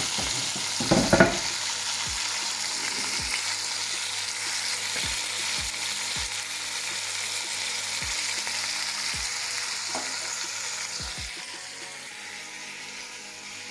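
Pork cheeks and chopped bell peppers sizzling steadily in a stainless steel pot over high heat, with one loud knock about a second in. The sizzle becomes fainter near the end.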